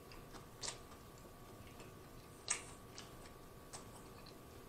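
A person chewing a mouthful of corned beef sub with the mouth closed, heard as a few faint, scattered wet mouth clicks, the loudest about two and a half seconds in.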